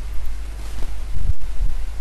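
Steady background noise of the recording: a low hum with hiss, with a brief low rumble a little after a second in.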